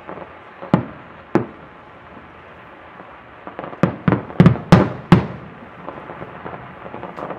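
Aerial fireworks shells bursting: two sharp bangs about a second in, then a rapid cluster of about six loud bangs around the middle, followed by smaller scattered pops and crackles.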